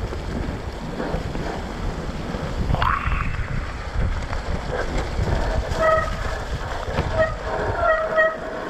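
Mountain bike's rear disc brake squealing in short repeated tones from about halfway through, over wind on the microphone and rough rumble from the tyres on the dirt trail. The rear brake pads are worn out.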